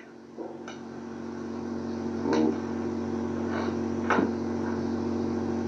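A steady hum made of several fixed tones, swelling gradually louder, with a few brief short sounds breaking through about two and a half and four seconds in.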